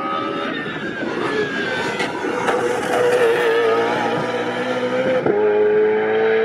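Racing car engine running hard on a track, its pitch gliding and stepping as the revs change, with several sharp cracks.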